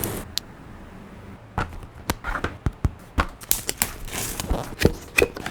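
Unboxing handling sounds: about a dozen irregular sharp clicks, taps and light knocks from packaging and small parts being handled, with a short rustle or scrape about four seconds in.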